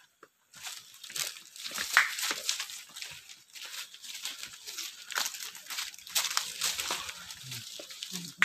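Dense, irregular rustling and crunching of footsteps and brushing foliage on a leaf-strewn forest footpath, starting about half a second in.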